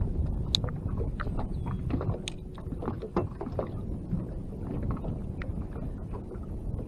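Low wind rumble on the microphone, with scattered light taps and splashes of choppy water against the side of a small boat.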